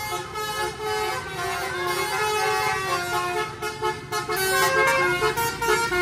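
Multi-tone 'telolet' musical air horns on cars playing a tooting melody: held horn notes that switch pitch every fraction of a second, over crowd noise.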